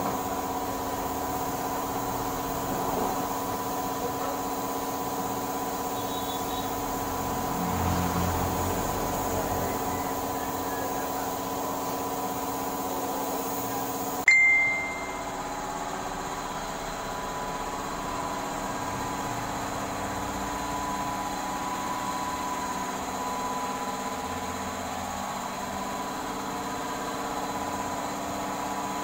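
Steady drone of a running machine, holding several fixed tones over a light hiss. About halfway there is a sharp click, and the drone carries on with a slightly different set of tones.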